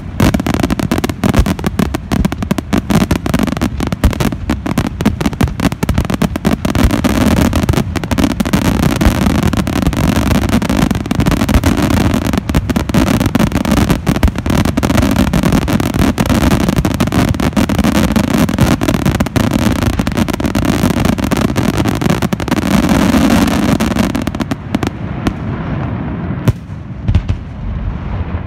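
Dense, continuous barrage of aerial firework shells bursting with rapid crackling, packed with overlapping bangs. The barrage thins out and fades over the last few seconds.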